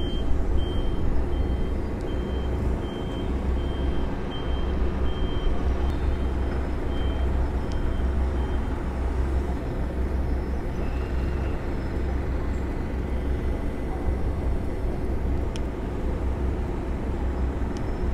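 Concrete mixer truck's diesel engine running steadily while its drum discharges concrete down the chute into a crane bucket. A reversing alarm beeps at an even pace through the first half, then stops.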